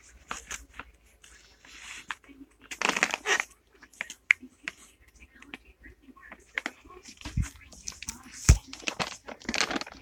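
Irregular crinkling and rustling handling noises in a small room, with scattered clicks and two dull thuds near the end.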